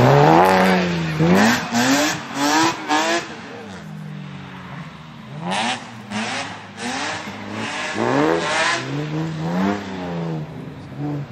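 Rally car engine revving hard, its pitch climbing and dropping over and over as it works through gears and lifts off. It is loudest right at the start.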